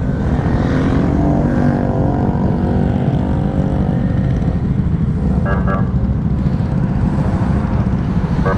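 Scooter and motorcycle engines running at low speed in slow group traffic, a steady low rumble. Two brief tonal blips come about five and a half seconds in and near the end.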